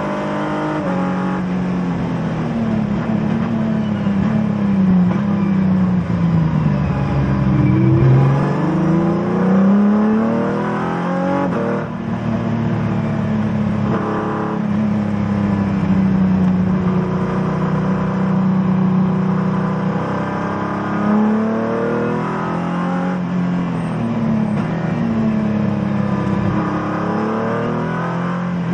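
Race car engine heard from inside the cockpit at track speed. Its pitch climbs and drops repeatedly with throttle and gear changes, falling steadily about five to eight seconds in and climbing again right after.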